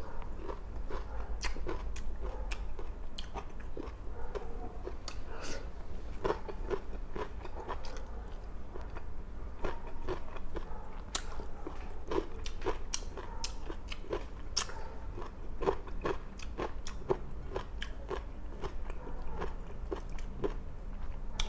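Close-miked chewing and biting of food, with many small irregular crunches and wet clicks.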